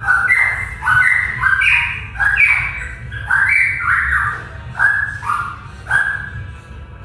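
Cucak pantai, an endemic Papuan songbird, singing a continuous run of loud, rich whistled notes that step up and down in pitch, about two a second. It is a rambling song like a straw-headed bulbul's.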